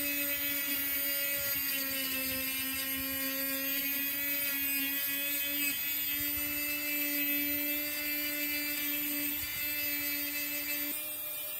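An electric power tool's motor running steadily with a whine that wavers slightly in pitch. Near the end the highest overtones fall away.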